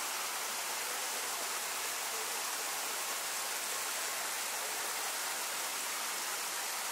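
A steady, even hiss that stays level throughout, strongest in the high range, with no distinct events.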